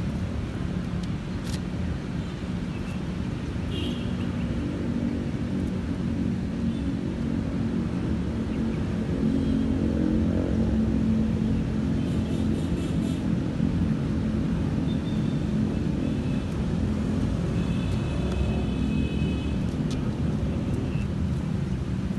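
A steady low rumble, with faint high-pitched tones about four seconds in and again for a second or so near the end.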